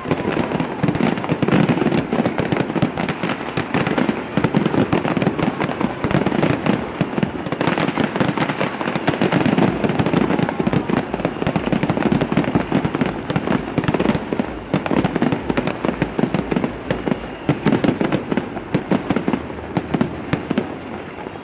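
A New Year fireworks display going off: a dense, continuous barrage of bangs and crackling from shells bursting overhead, easing slightly near the end.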